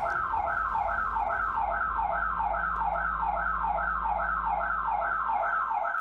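Alarm siren sounding continuously through a doorbell camera's microphone: a rapid repeating falling whoop, about two and a half sweeps a second, set off by intruders.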